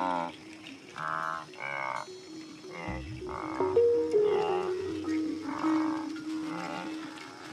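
Blue wildebeest grunting: a string of short, nasal calls, roughly one a second, over music with long held low notes.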